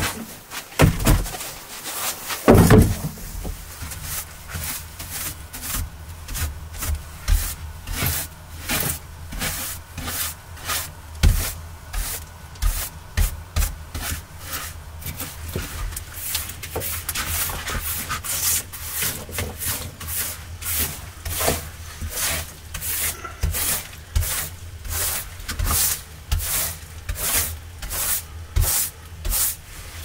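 A few knocks, then steady, repeated scraping strokes against wood, about two or three a second, done by hand.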